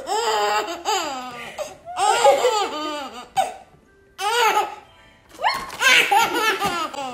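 Baby laughing hard in four bursts, with short pauses between them.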